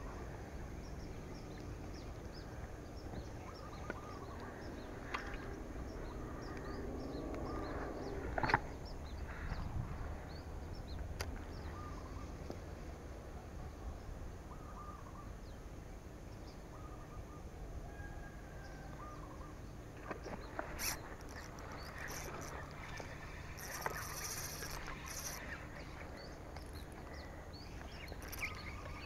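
Outdoor ambience: a low steady rumble with scattered short bird calls, a sharp click about eight seconds in, and a few brief rustles and clicks about two-thirds of the way through.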